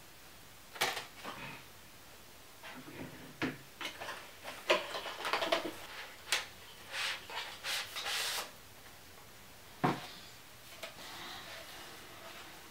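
Hands handling the plastic packaging and film sheets of a laptop skin kit: scattered clicks, taps and rustles, busiest in the middle, with a single sharper knock about ten seconds in.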